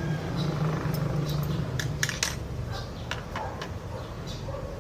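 Small metal parts clicking and clinking as they are handled, a few sharp clicks in two clusters about two and three seconds in, over a steady low hum.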